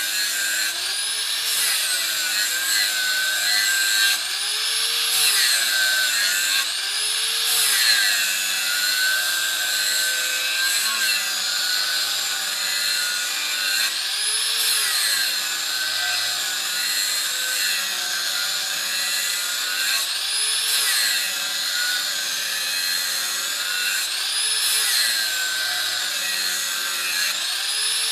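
Electric angle grinder running with its abrasive disc grinding the steel edge of a lawn mower blade. The motor's whine rises and falls in pitch every three to four seconds over a steady grinding hiss.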